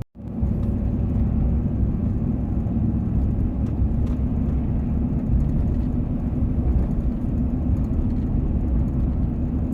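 Steady low rumble of a car being driven, heard from inside the cabin: engine and tyre noise on the road, with a faint steady hum.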